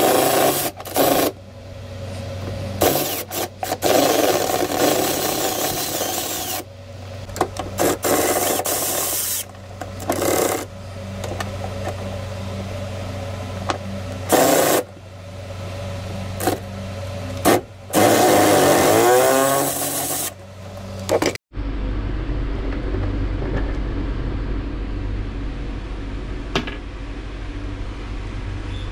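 Milwaukee M12 Fuel cordless ratchet running in repeated short bursts, loosening the nuts on the rusted generator drip-tray mounts. For the last several seconds only a steady low hum remains.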